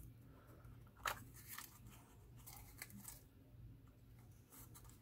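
Very quiet, faint crinkles and rustles of cardstock as fingers press and handle a small paper box, a few soft clicks about a second in and again around the middle.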